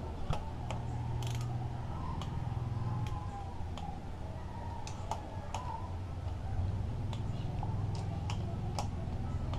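Torque wrench ratcheting in irregular sharp clicks as screws are tightened on a motorcycle engine, over a steady low hum.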